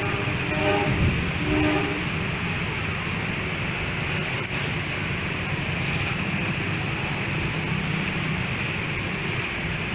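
Diesel locomotive horn giving two short toots about half a second and a second and a half in, after a long blast, then the steady low rumble of the train running along the track.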